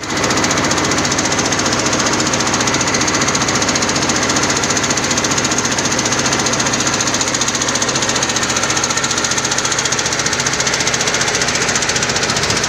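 A small engine running steadily at a constant speed, with a fast, even pulsing.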